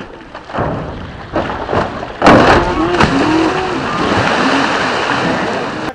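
A cow plunges off a bamboo ramp into river water with a big sudden splash a little over two seconds in, followed by a loud, continuing rush of churned water, with voices calling over it.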